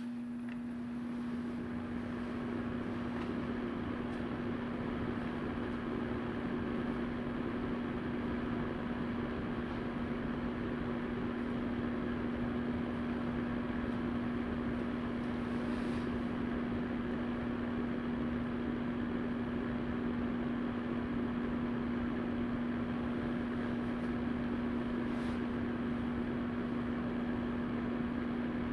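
Vornado VMH300-KR electric fan heater running: a steady rush of air from its fan, with a steady low hum.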